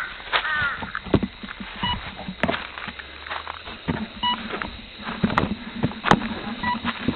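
Handling noise heard through the crashed RC flying wing's onboard camera: leaf litter and twigs crackling and knocking against the airframe as it is moved, with a short electronic beep repeating about every two and a half seconds.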